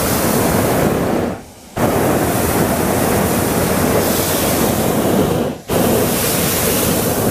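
Hot-air balloon propane burner firing: a loud, even rushing blast of flame. It breaks off for about half a second just after one second in, and for a moment after five and a half seconds.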